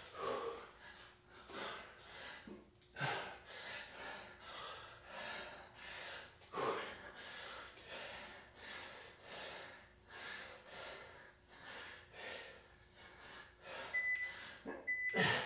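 A man breathing hard and rhythmically, with short forceful breaths about once a second, while holding push-ups under exertion. Near the end, two short countdown beeps from an interval timer.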